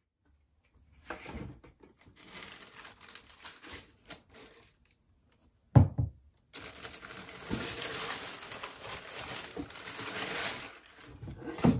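Tissue paper crinkling and rustling as it is handled in and pulled from a cardboard shoebox, with a dull thud about six seconds in and another near the end as a Nike Air Max 97 sneaker is set down on the table.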